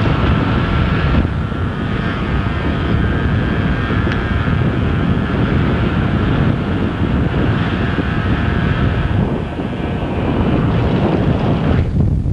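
Wind rushing over the camcorder microphone in a moving vehicle, with the vehicle's engine running steadily underneath as a faint whine. The upper hiss thins out near the end.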